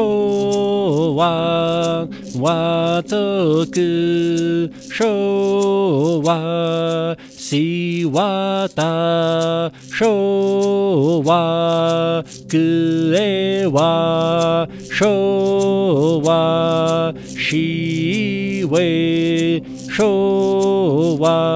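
A single voice chanting a slow, mantra-like greeting in the Muisca language, holding long notes that bend in pitch, phrase after phrase with short breaths between, over a steady low drone.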